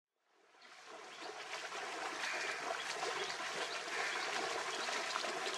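Water splashing and sloshing as water buffalo wade through a shallow flooded canal pulling loaded carts, fading in from silence over the first second.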